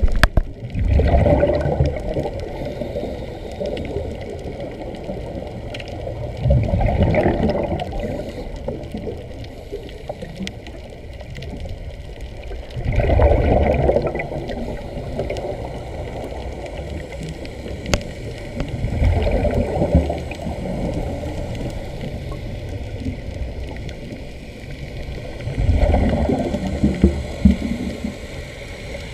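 Underwater air bubbles escaping from a Sea Trek diving helmet, rushing in five bursts about six seconds apart over a steady muffled underwater rumble.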